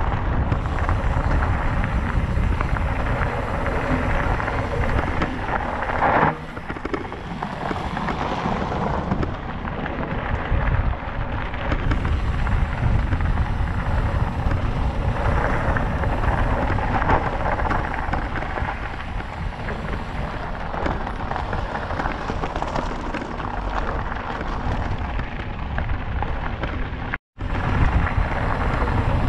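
Wind buffeting a bike-mounted or body-worn camera's microphone while a mountain bike is ridden at speed, a steady low rumbling roar with trail noise underneath. The sound cuts out for a split second near the end.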